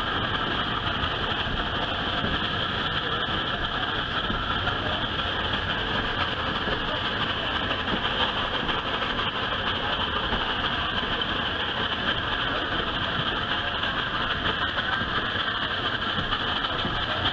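Steam-hauled train running, heard from a passenger car behind the locomotive: a steady, unbroken noise of the working engine and the cars on the rails.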